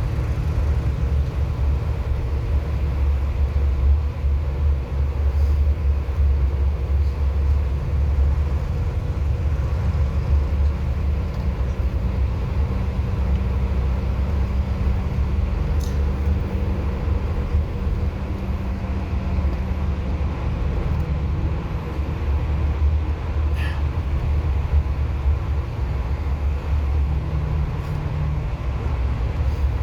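Bus driving along, a steady low rumble of engine and road noise, with a couple of faint clicks about halfway through and about two-thirds of the way through.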